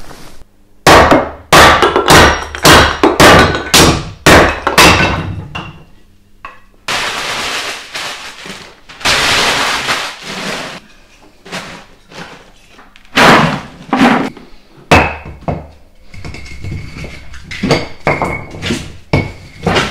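A run of sharp knocks and thuds in the first few seconds, then newspaper being crumpled and rustled around the middle, then kindling and split logs clunking and clinking as they are laid into a wood-burning stove near the end.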